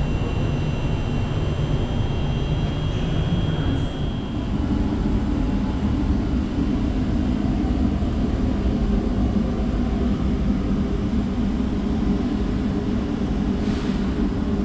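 Steady mechanical hum and rumble inside a standing passenger train carriage. A high whine runs for the first four seconds, then a deeper hum dominates, and a short hiss comes near the end.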